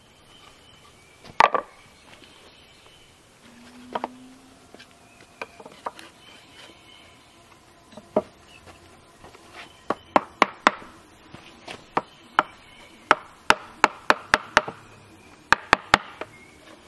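Wooden mallet striking a carving chisel to hollow out a small wooden dish. The sharp wooden knocks are scattered at first and come quicker, about two or three a second, in the second half.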